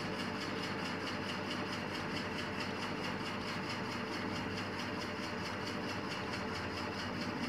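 Steady background noise: an even hiss and hum with a few faint steady tones, unchanging throughout.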